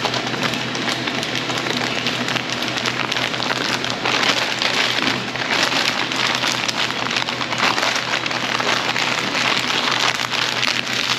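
Sandwich wrapping paper crinkling and rustling in the hands as a sandwich is folded up in it: a steady, dense crackle.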